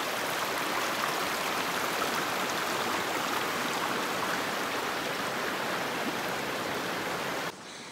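Shallow river water running over rocks, a steady rushing that drops suddenly to a lower level near the end.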